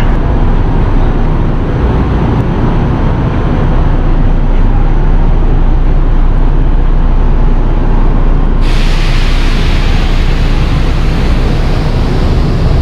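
A train running, a loud, steady noise throughout. About eight and a half seconds in, a hiss joins suddenly and stays.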